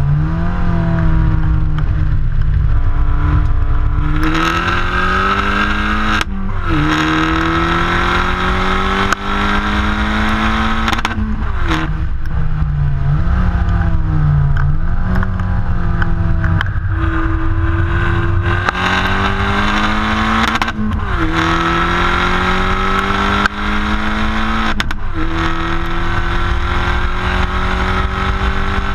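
Opel Corsa OPC Nürburgring Edition's turbocharged four-cylinder engine heard right at the exhaust tailpipe under hard acceleration on track. The note rises steadily in pitch and falls sharply at each upshift, about five times, with a short stretch of lifting and blipping in the middle. A low rushing noise runs underneath.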